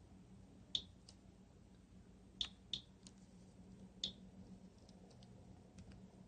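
Geiger counter clicking at random, sparse intervals, roughly one click a second: a low count close to normal background radiation.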